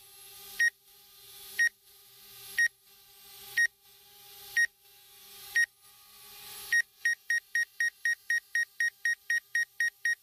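Electronic warning beeps during an indoor DJI Spark drone flight: sharp high beeps about once a second, quickening to about five a second about seven seconds in. A faint hum lies under the slower beeps.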